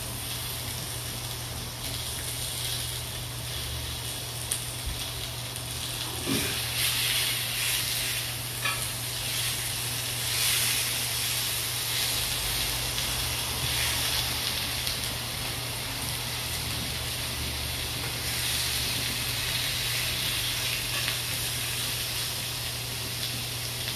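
Meat skewers sizzling steadily on a hot grill pan, with a couple of brief knocks about six and eight seconds in.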